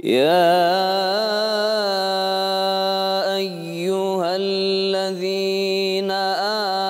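A man reciting the Quran in the melodic, chanted tajwid style, drawing out long held notes with ornamented turns in pitch and a couple of brief dips.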